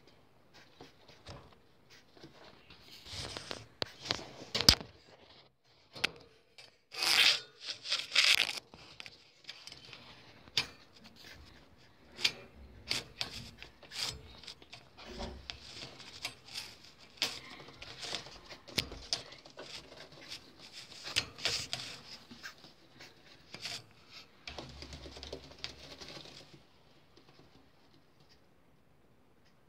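Rustling and scraping noises with many scattered sharp clicks, loudest in bursts a few seconds in and again around eight seconds, dying away near the end.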